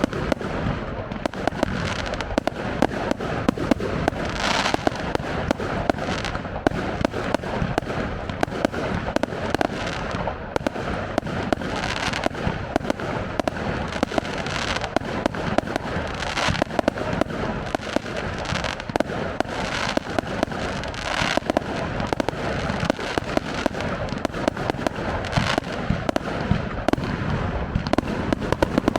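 Fireworks display: a continuous barrage of crackling and popping, with louder bangs standing out every few seconds.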